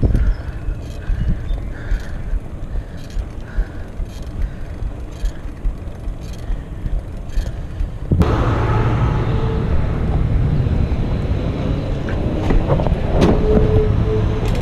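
Wind on the microphone and the rumble of a BMX bike's tyres rolling on pavement, with faint regular ticks. About eight seconds in, the sound cuts abruptly to a louder, steady low drone.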